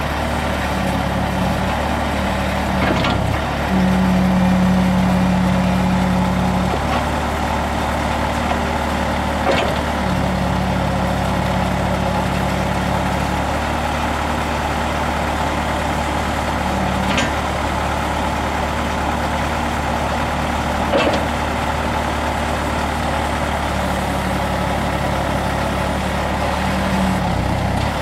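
Bobcat T190 skid steer's diesel engine running steadily. A stronger hum comes in for a few seconds at a time, three or four times, and there are a few short sharp knocks.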